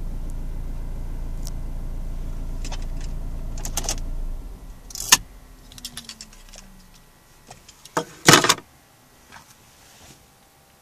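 Inside a Ford Fiesta's cabin: a steady low hum from the running car, which stops about four seconds in. A faint falling whine follows, then scattered clicks and rattles, the loudest a short burst about eight seconds in. It is the strange interior noise the owner is showing, with no cause given.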